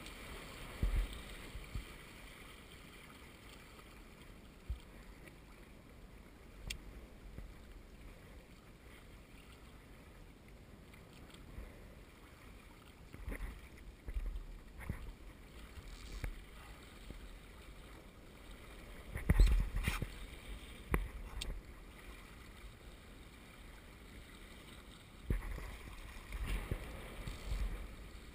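Water washing and gurgling along the hulls of a Hobie Wave catamaran under sail. Scattered knocks and several short, louder thumping bursts come through, the loudest about two-thirds of the way through.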